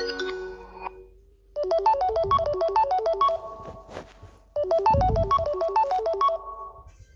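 Samsung Galaxy A40 ringtone playing: a short phrase of quick, bright keyboard-like notes, played twice with a short gap between. The end of the previous ringtone fades out in the first second.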